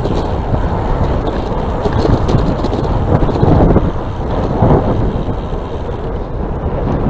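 Wind noise on the microphone of a moving electric bike: a loud, uneven low rush that swells and dips in gusts.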